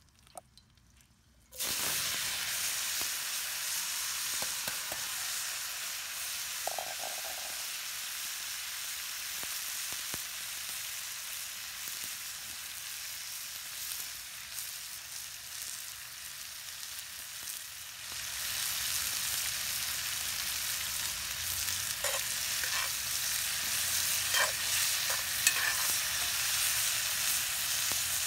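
Sliced mushrooms and garlic sizzling in oil in a cast iron skillet over a wood fire: a steady frying hiss that starts suddenly after a moment of near silence and grows louder about two-thirds of the way through, with a few light clicks near the end.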